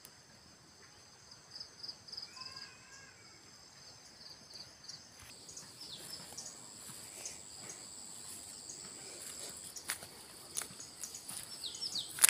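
Insects chirring outdoors in steady high-pitched tones, one of them pulsing. A bird gives a few short rising-and-falling notes about two seconds in, and faint scattered rustles and steps of someone walking through the undergrowth come more often near the end.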